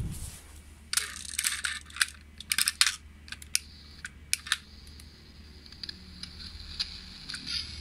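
A run of sharp clicks and clatters as small hard toys, a die-cast toy car among them, are handled and set down on a hard floor. The clicks are densest from about one to four and a half seconds in, then thin out to fainter scattered ticks.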